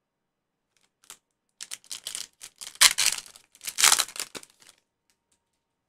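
Foil wrapper of a Panini football trading-card pack being torn open and crinkled by hand: a run of crackling rustles starts about a second and a half in, with two loudest rips around the middle, and stops shortly before the end.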